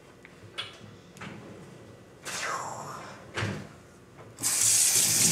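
A few light knocks and a rustle of plastic packaging, then about four seconds in the kitchen faucet is turned on and water runs steadily and loudly into a stainless steel sink.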